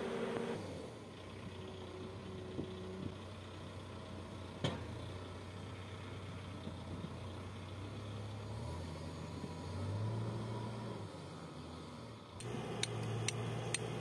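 Case 570ST backhoe loader's diesel engine running steadily, swelling briefly about ten seconds in, with a single sharp knock near the middle. Near the end the engine sound becomes abruptly louder, with a few sharp clicks.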